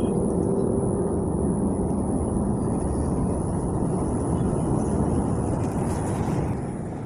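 Steady low outdoor rumble with a faint high steady tone above it, easing slightly near the end.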